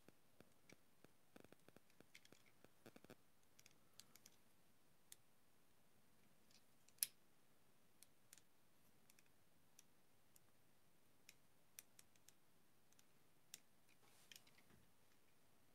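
Faint, scattered small clicks and taps of a die-cast model car's tiny parts being handled and pressed into place, with one sharper click about seven seconds in.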